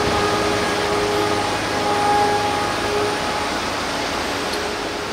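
Diesel engine of a tracked RNLI lifeboat launch-and-recovery tractor running in the surf, a steady pitched engine note with a low hum that fades about three seconds in, over the steady wash of breaking waves.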